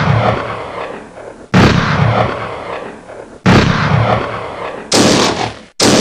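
A series of loud, sudden bangs, each fading away over a second or more: about one every two seconds, then coming closer together near the end.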